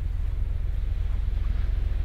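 Wind buffeting the microphone: a heavy, fluttering low rumble, over a faint steady hiss.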